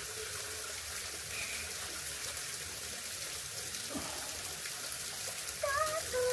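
Shallow stream water trickling and splashing steadily, with a brief voiced exclamation near the end.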